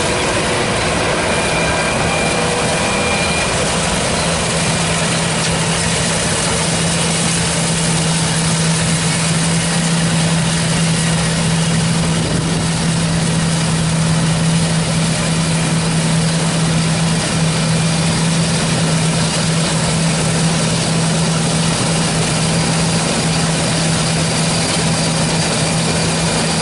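John Deere T670i combine harvester running steadily while cutting spring barley: a loud, even machine drone with one steady low hum and no change in pace.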